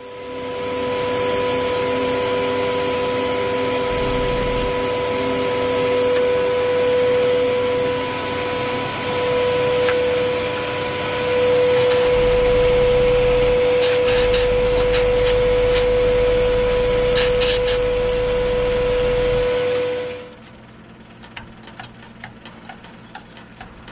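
Workshop machinery running beside the wood lathe: a loud steady whine over a hiss. It starts just after the sanding ends and shuts off about 20 seconds in.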